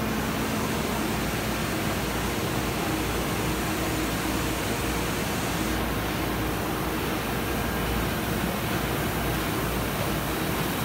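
Komori Lithrone LS640 sheetfed offset printing press running steadily: an even whirring rush with a faint low hum underneath.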